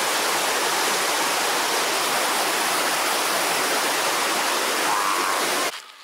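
Steady rushing of a waterfall and its stream, an even wash of falling water that cuts off abruptly just before the end.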